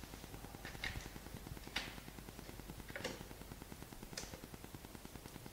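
Four faint, short clicks about a second apart: a screwdriver seating on and turning screws in the plastic base of an ultrasound machine's monitor bracket.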